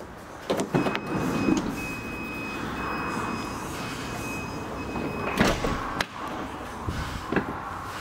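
Volkswagen Caravelle's sliding side door, released with a couple of clicks and then running along its rail for about five seconds with a steady high tone, ending in a loud clunk as it catches. A few lighter clicks follow.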